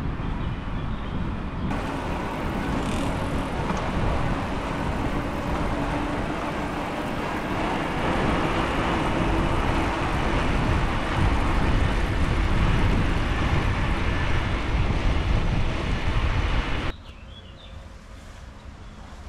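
Steady rushing noise of riding along a cycle path, wind and road noise with no clear pitch, which drops away abruptly near the end.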